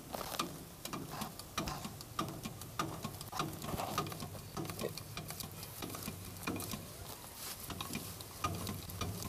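Irregular light clicks, taps and scrapes of a hand tool working on a tractor's front steering linkage.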